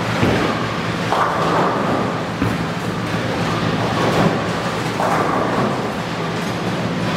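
Bowling alley din: the rumble of balls rolling down the lanes, with several sharp crashes of pins scattered through it over a steady low hum.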